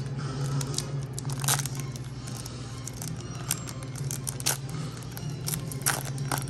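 Foil wrapper of a trading card pack crinkling and tearing open, with cards scraping as they are handled. Sharp crackles come every second or so over a low steady hum.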